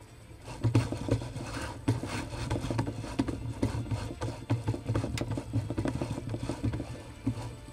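Shake table running a simulated earthquake under a wooden stick-frame tower model: a pulsing low mechanical hum with dense, rapid clattering and rattling, starting about half a second in.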